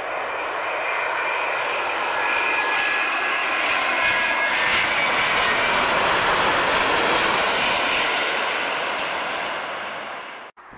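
Boeing 787-9 Dreamliner's jet engines passing close by during landing. The noise swells, then fades, with a steady high whine over the peak, and cuts off abruptly near the end.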